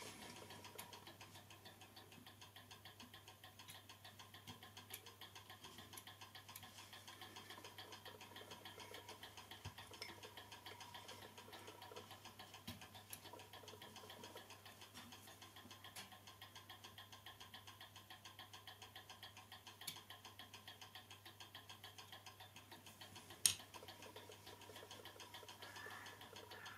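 Small clock movement with a balance wheel and hairspring, ticking faintly in a rapid, even run of several ticks a second. A few sharper single clicks stand out, the loudest near the end.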